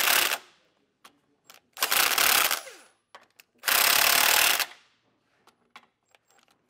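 Cordless impact wrench hammering in three short bursts, each under a second, as it runs U-bolt nuts down evenly onto a steel axle bracket.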